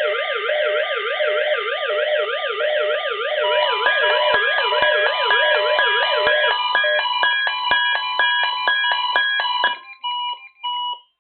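Several NOAA weather radio receivers sounding their alert alarms at once for the Required Weekly Test. Warbling siren tones sweep up and down, and from about three and a half seconds in they are joined by rapid beeping at several pitches. The sirens stop after about six and a half seconds, and the beeping breaks up and stops near the end.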